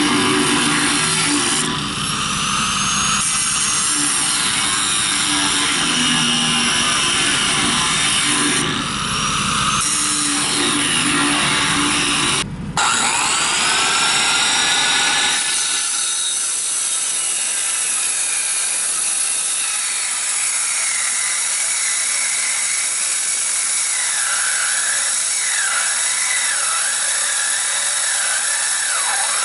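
An angle grinder with a cut-off wheel cutting through the steel wall of a propane tank, with a harsh grinding and a high whine. Its load eases briefly about 2, 9 and 12 seconds in, and each time the whine climbs back up, the last after an almost full stop. From about 16 seconds in the heavy low grinding falls away and the wheel goes on at a higher, wavering pitch.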